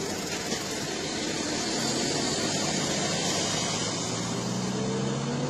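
Road noise inside a moving car's cabin: a steady rush of tyres and wind, with the engine's hum rising in pitch near the end as the car speeds up.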